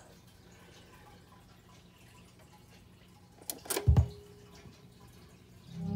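Turntable stylus being set down on a spinning 7-inch vinyl record: a couple of sharp clicks and a low thump about three and a half seconds in as the needle lands, with the record's music starting right at the end.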